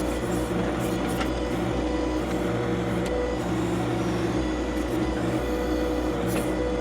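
John Deere 2025R compact tractor's three-cylinder diesel running steadily while it works the backhoe, with a few faint clicks and knocks.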